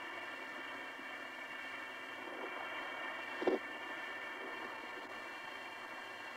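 Steady hiss of the Apollo 10 lunar module's onboard voice recording between crew transmissions, with several faint steady tones running through it and one brief blip about three and a half seconds in.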